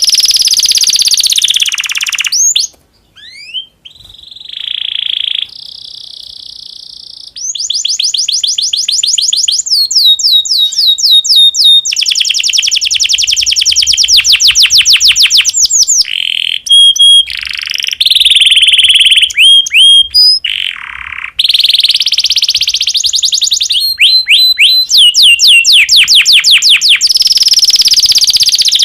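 Male domestic canary in breeding condition singing loudly: long rapid trills of repeated notes, with held whistled notes and sliding calls between phrases and a brief pause about three seconds in.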